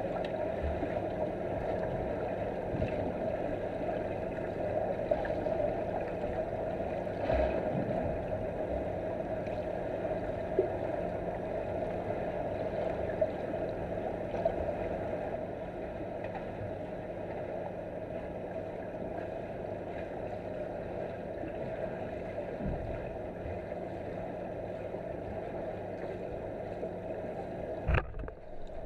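Underwater swimming-pool ambience picked up by a camera in a waterproof housing: a steady muffled rush with a low hum and a few faint clicks. Just before the end, a brief low thump and rustle as a swimmer handles the camera.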